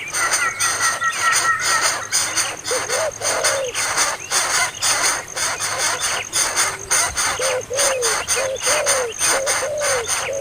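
Bird calls: short arching notes repeated many times, with a pair of steady higher whistled tones in the first two seconds, over a rapid run of sharp clicks.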